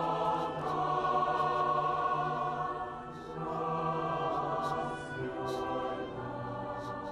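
Choral music: a choir singing slow, long-held chords, softening about three seconds in and fading near the end.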